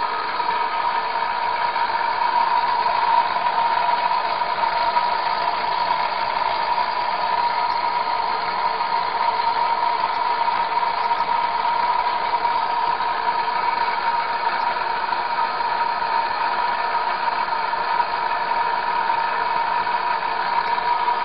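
Van de Graaff generator running, its motor-driven belt making a steady whirring hum with one strong, even tone.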